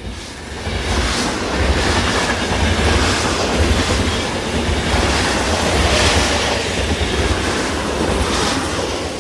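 A train running on rails with a steady low rumble and clickety-clack, rising in over the first second.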